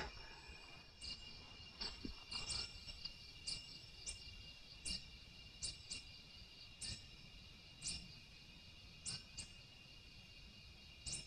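Faint night chorus of crickets, steady high trilling tones, with short soft ticks about once a second.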